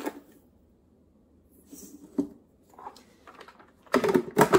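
A measuring spoon scoops sugar from a plastic storage canister: a light click, then faint scraping of the spoon in the sugar with another click. Near the end comes a quick run of loud knocks and clatter as the spoon and canister strike each other.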